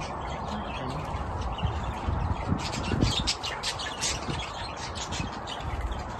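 Flock of budgerigars chattering and squawking, with a denser run of quick, high chirps from about two and a half seconds in.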